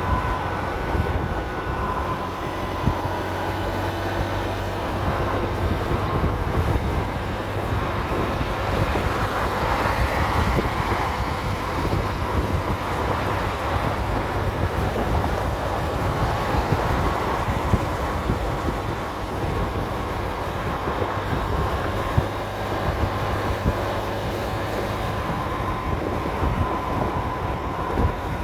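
Motor scooter riding at highway speed: the engine runs steadily under road and wind noise, with a faint high tone that fades in and out.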